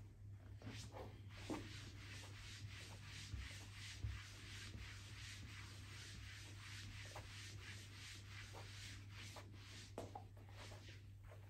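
Hands rubbing briskly over a hooded sweatshirt on a person's back in a back massage: a faint, quick, even run of brushing strokes, about three a second, with a few light knocks.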